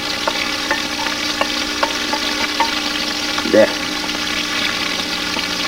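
Hot pasta and broccoli soup sizzling in a stainless steel pot as it is stirred with a wooden spoon: a steady hiss with scattered light clicks of the spoon against the pot.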